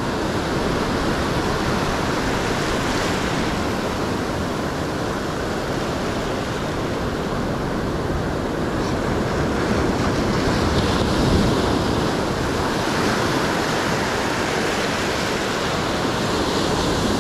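Ocean surf breaking and washing up the beach in a steady rush, swelling a little about ten seconds in.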